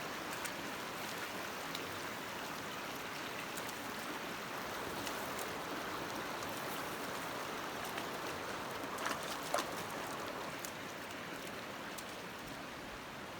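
Creek water running steadily over rocks, with a couple of brief sharp ticks about nine seconds in.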